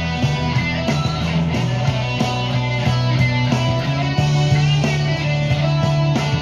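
Electric guitar played through an amplifier in a rock boogie style, with sustained low notes and chords struck in a steady rhythm.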